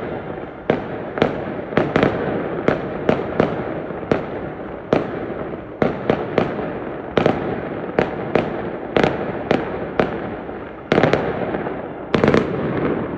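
Fireworks going off in a rapid, irregular series of sharp bangs, about two a second, over a continuous rumble, with several bangs close together near the end.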